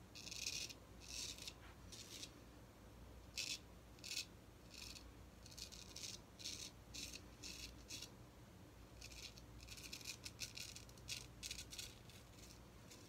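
Straight razor scraping through lathered stubble in short strokes, a faint crisp rasp with each pass, the strokes coming in quicker runs near the end.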